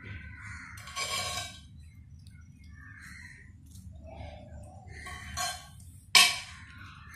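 A metal spoon drizzling tempering over khandvi rolls in a ceramic bowl: a few soft scrapes, then one sharp clink about six seconds in.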